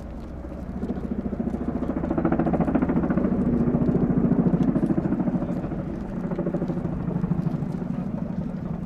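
Boeing Chinook HC2 tandem-rotor helicopter flying low overhead: a rapid, even beat of its twin rotors over the engine noise. It grows louder as the helicopter comes over, peaking about four seconds in, then eases off slightly.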